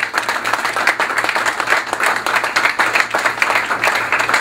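Audience applauding, a dense crowd of hands clapping.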